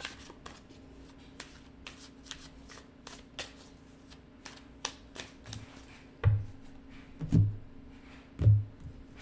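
A deck of tarot cards being hand-shuffled, a run of short papery flicks and riffles. Near the end come three dull thumps on the tabletop, about a second apart.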